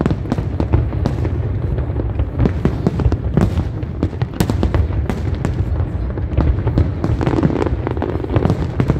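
Aerial firework shells bursting in a large display: rapid, overlapping bangs, several a second, over a continuous low rumble.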